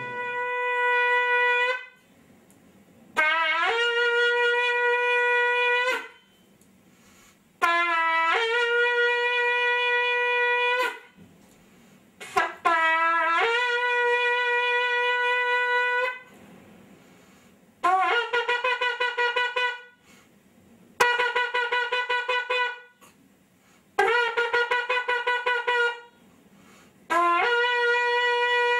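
A horn blown in a series of about eight long single-note blasts, each two to three seconds long with short gaps between. Most blasts slide up in pitch at the start before settling on the note, and several in the later part waver unsteadily.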